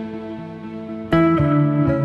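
Background music led by guitar, with held notes and a new chord struck sharply about a second in.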